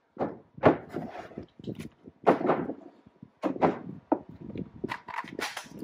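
Cordless impact tools and a steel impact socket being picked up and set down on a workbench: several separate knocks and clunks.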